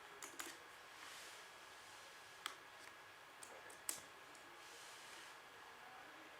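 Near silence, broken by a few short, sharp clicks, the clearest about two and a half and four seconds in.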